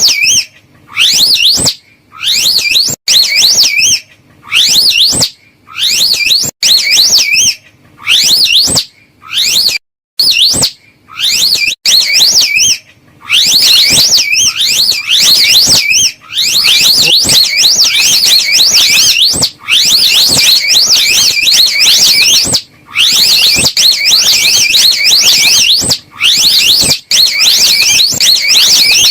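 Slow loris call: loud, high, rapidly warbling trills. They come in short phrases about once a second, then from about halfway run on almost without a break, with only brief pauses.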